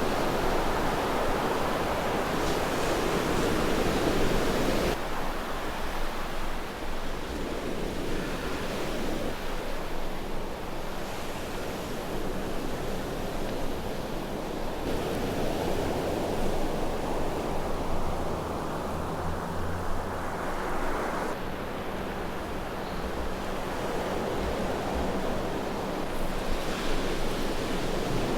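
Ocean surf washing with wind buffeting the microphone, a steady rushing that shifts abruptly in level and tone a few times.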